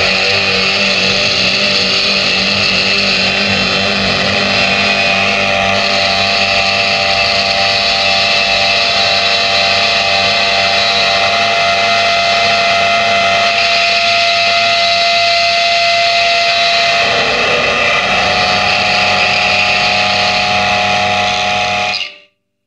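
Distorted, amplified drone music: many held tones layered into a steady wall of sound, with the upper tones shifting about seventeen seconds in, fading out quickly near the end.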